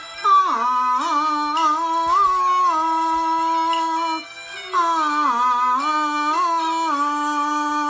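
Cantonese opera melody: a single line of long held notes with slides between them, pausing briefly about four seconds in.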